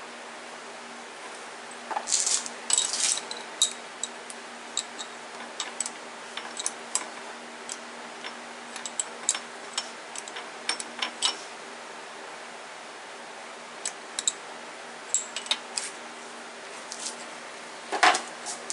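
Scattered light metallic clicks and rattles of small metal tools, such as drill bits and a chuck, being handled at a switched-off metal lathe. A fan hums steadily underneath.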